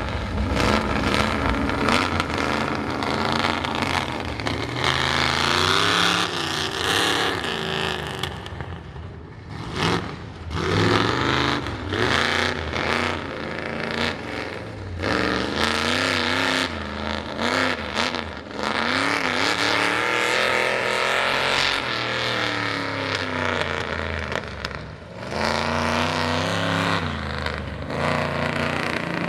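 Ford mud truck's engine running through straight pipes with open exhaust, revving hard over and over, its pitch rising and falling. It eases off briefly about nine seconds in and again near twenty-five seconds.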